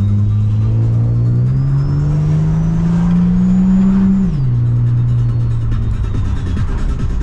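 Supercharged Holden VY Commodore accelerating: engine note and supercharger whine climb together for about four seconds, then drop sharply at a gear change and settle into a steady cruise. Music from the car stereo plays underneath.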